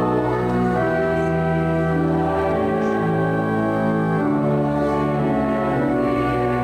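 Church organ playing a hymn in slow, held chords, the notes changing every second or two.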